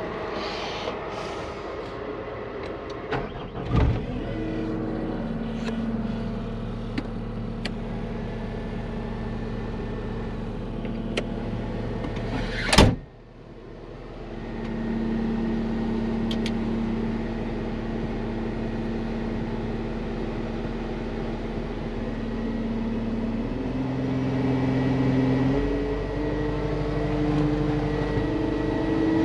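Diesel engine of a Cat 259D compact track loader running steadily. Its pitch shifts up a couple of times near the end, and there is one loud bang about thirteen seconds in.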